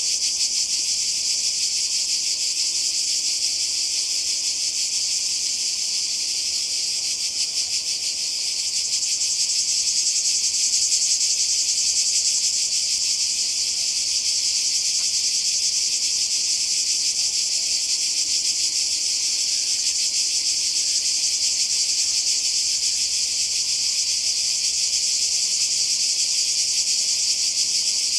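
A chorus of cicadas: a dense, steady, high-pitched buzz that swells a little about ten seconds in.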